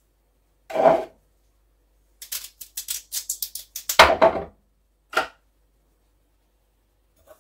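A series of sharp knocks and clicks, like hard objects being handled: a knock about a second in, then a quick run of clicks, the loudest knock at about four seconds, and one more knock a second later.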